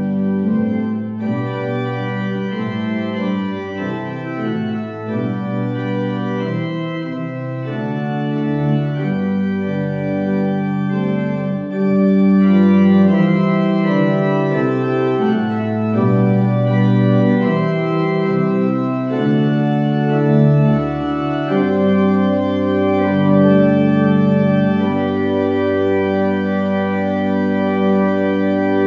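Organ postlude closing the worship service: slow, sustained chords that change every second or few, growing louder about twelve seconds in.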